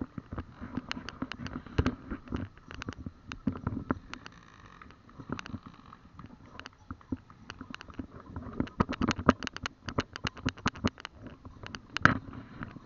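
Irregular clicks, knocks and rubbing from a handheld camera being moved about, over faint street noise, with one louder knock near the end.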